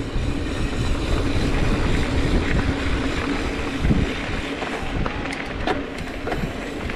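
Wind rushing over a helmet-mounted action camera's microphone and the tyres of a YT Decoy mountain bike rumbling over a dirt trail on a descent. A few sharp clicks and rattles come about five to six seconds in.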